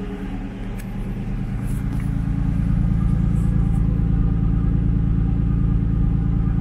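Nissan Skyline R32's engine idling steadily, heard at its exhaust tailpipe. It grows louder over the first couple of seconds, then holds steady.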